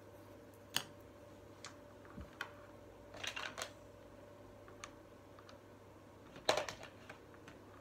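Chunky plastic beads clicking and knocking against each other as they are threaded onto a string: scattered sharp clicks, with a short run of them a little past halfway and the loudest cluster near the end.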